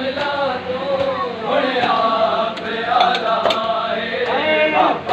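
Male voices chanting a noha, a Muharram mourning lament, in a slow melody, with sharp slaps through it at a rough beat: the hand strikes of matam chest-beating.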